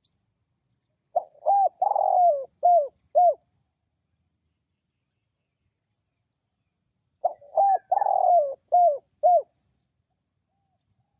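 Spotted dove cooing: two phrases about six seconds apart, each of five notes with a longer, drawn-out note in the middle.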